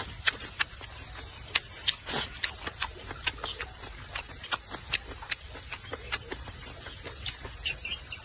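Close-miked eating of potato noodles in soup: wet chewing smacks and mouth clicks at an irregular pace, with a short slurp about two seconds in.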